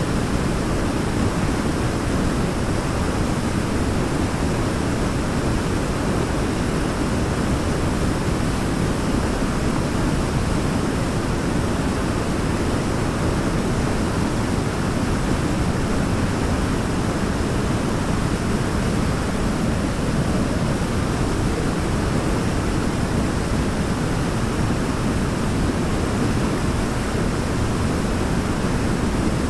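Waterfall: a steady, unbroken rush of falling water, deepest and strongest in the low range.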